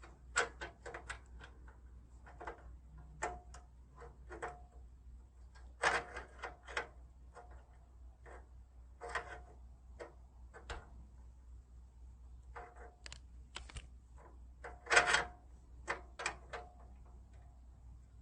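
Irregular metallic clicks and clinks of an adjustable wrench being worked on a radiator-support bolt, some with a brief ring, in scattered clusters. The bolt will not come loose.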